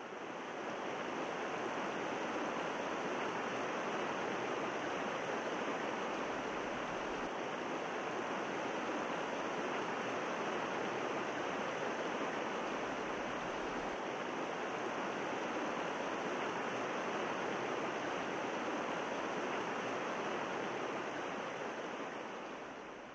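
Steady rushing water, an even hiss with no breaks, fading in at the start and fading out near the end.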